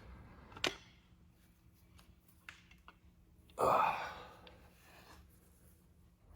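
A sharp click, a few faint ticks, then a man's breathy sigh about three and a half seconds in that fades over about a second.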